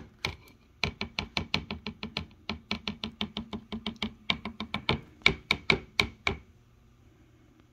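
Rapid, even series of light knocks, about five a second, running for about five and a half seconds after two knocks at the start. Each knock rings slightly, like a hard plastic or wooden object being tapped.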